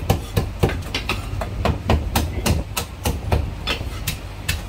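Two cleavers chopping cooked poultry on thick round wooden chopping blocks, about four or five sharp chops a second, each with a dull thud of the block under it.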